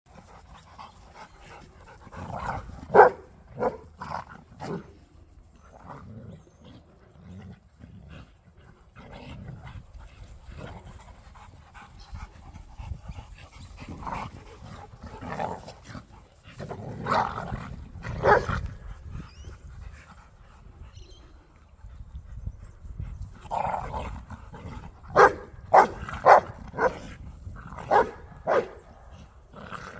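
Dogs, a Rottweiler and a Staffordshire bull terrier, barking during rough play. The short barks come in clusters: a few about three seconds in, more around seventeen to eighteen seconds, and a quick run of them near the end.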